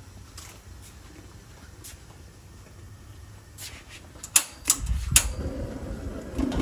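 Oil with garlic and chili crackling faintly in a covered frying pan. About four seconds in come three sharp clanks as the glass lid is handled and lifted off. A louder low rumble then sets in as the burner of the Tundra Pro propane camp stove is turned up.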